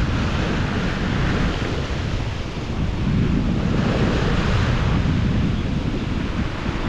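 Ocean waves surging and washing against a rock ledge, rising and easing twice, with wind buffeting the microphone.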